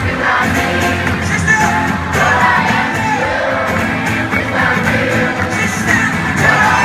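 Live music with singing, the audience singing along in parts, a loud continuous crowd sing-along over the band.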